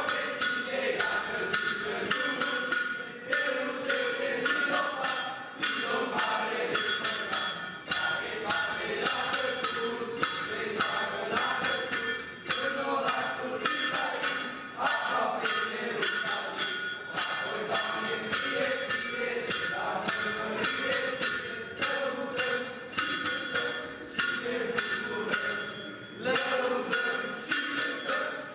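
A group of young voices singing a carol in unison, with a steady jingling beat of about two strokes a second.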